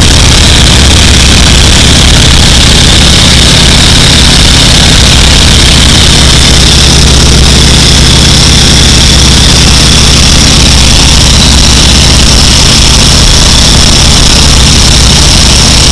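Boeing Stearman biplane's radial engine and propeller running at a steady cruise in flight, a loud, unbroken drone, with wind rushing past the open cockpit.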